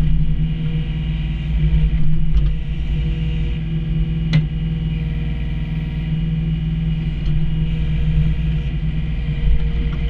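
Komatsu PC28 mini excavator's diesel engine running steadily with hydraulics working as the boom and bucket dig, heard from the operator's seat. A single sharp knock about four seconds in.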